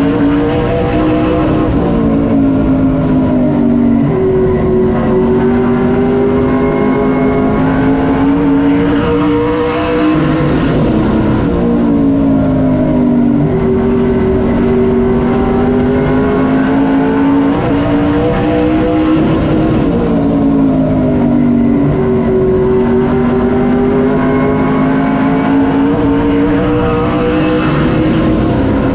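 Sportsman late model race car's V8 engine heard from inside the cockpit at racing speed. Its pitch climbs and then drops over and over, about every ten seconds, as the car accelerates down the straights and lifts for the turns.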